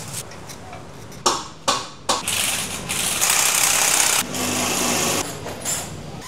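Pneumatic impact wrench rattling while suspension bolts are run on, in one long run of a few seconds. A few sharp metal knocks come just before it starts.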